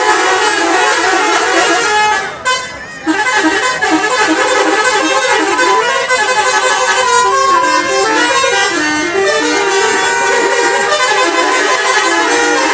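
Indonesian bus 'telolet' musical horn playing a long melody of stepped tones, with a short break about two and a half seconds in.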